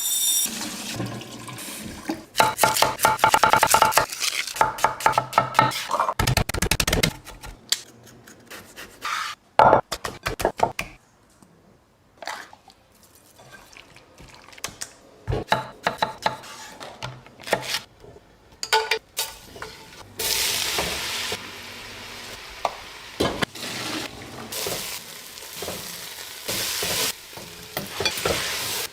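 Kitchen cooking sounds: a utensil clattering and scraping in a metal pot, with a few loud knocks, then oil sizzling steadily in a hot pan from about two-thirds of the way in.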